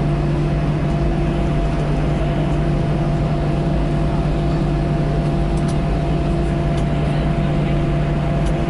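Airbus A321 cabin noise while taxiing: the jet engines running steadily at low power, heard from inside the cabin as a steady hum with a few fixed tones.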